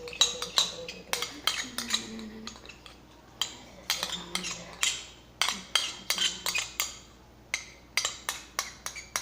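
A spoon clinking and scraping against a bowl while it stirs thickening slime, a quick irregular run of sharp taps, several a second.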